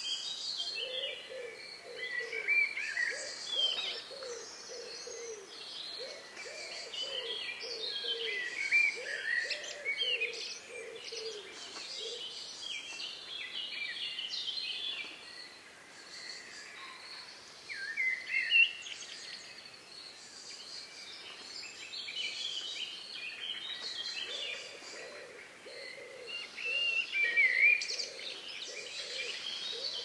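Several songbirds singing at once in a forest dawn-chorus mix, with overlapping high, quick warbling phrases. Underneath, a low call repeats a few times a second for the first dozen seconds, then stops and returns near the end.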